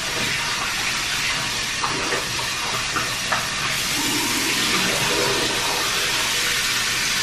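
Bathroom sink faucet running steadily into the basin, the water splashing over hands held in the stream, with a few small clicks. About four seconds in the splashing gets brighter and fuller.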